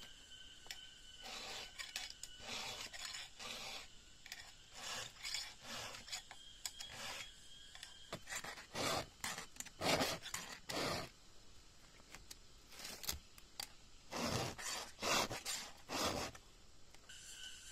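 Hand saw cutting wood in uneven back-and-forth strokes, louder and more forceful in the second half.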